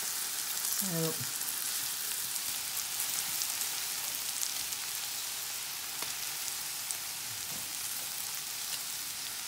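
Lamb chops and fresh stinging nettles sizzling steadily in butter in a frying pan, with a few faint clicks of metal tongs turning them.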